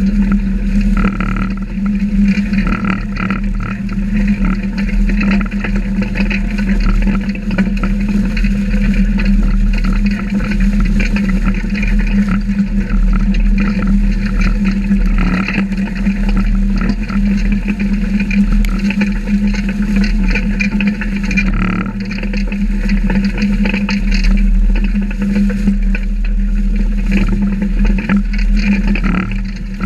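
Cyclone no-till manure injector in operation, its toothed 24-inch coulter blade cutting through soil and corn stubble up close, over a steady machine drone and constant clatter.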